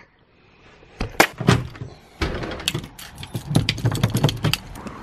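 Clicks and knocks of a door's lever handle and latch being worked as the door is opened, starting about a second in after a near-silent moment.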